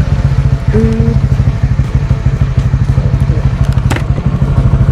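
Honda CB150R motorcycle's single-cylinder engine running with rapid, steady exhaust pulses. A brief steady tone comes a little under a second in, and a single sharp click about four seconds in.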